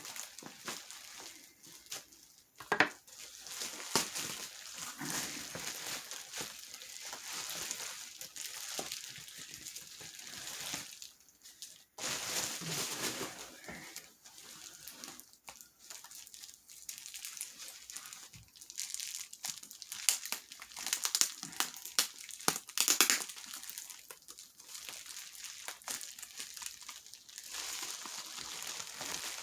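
Packaging being handled and unwrapped by hand: irregular crinkling and rustling throughout, with a few sharper, louder crackles around 3 seconds in and again a little past 20 seconds.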